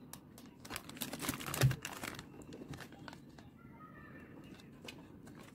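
Crinkling of the clear plastic wrappers and trays of packaged mooncakes being handled, busiest in the first half, with a soft thump partway through; it is quieter later on.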